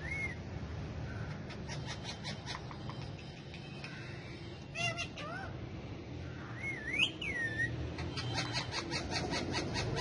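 Indian ringneck parakeets calling: short whistled chirps and, about seven seconds in, a rising-then-falling whistle, with two runs of quick ticking notes between them.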